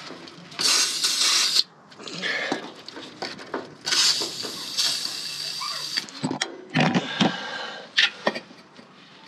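Aerosol lubricant sprayed in two hissing bursts, a short one near the start and a longer one of about two seconds from about four seconds in, onto a rubber exhaust hanger to ease its removal. Knocks and clatters of handling follow near the end.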